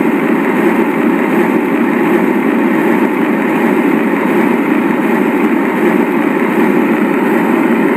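A loud, steady droning noise, like heavy static or rumble, from the audio of an eerie found-footage clip. It starts and cuts off abruptly.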